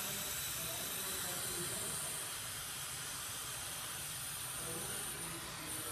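A man blowing one long, steady breath through the mouthpiece of a JASTEK handheld breathalyzer: a breathy hiss that stops near the end.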